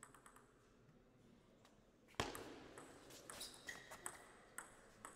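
Table tennis rally: the celluloid ball clicking off rubber bats and the table, about two hits a second, with one louder thump about two seconds in.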